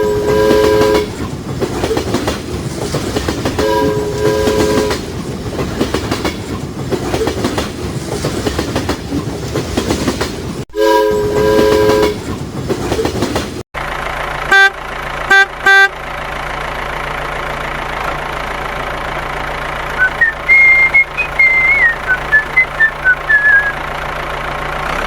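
A train rumbling along the rails, its horn sounding in three chord-like blasts. After a sudden cut come three short horn toots over a steady hum.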